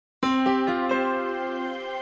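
Intro music starting a moment in: four bright notes struck in quick succession, each ringing on into a sustained chord.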